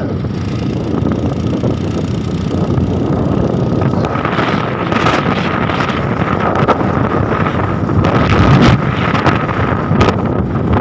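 Loud wind buffeting the phone's microphone, a dense, uneven rumble, with a faint steady high whine joining about four seconds in.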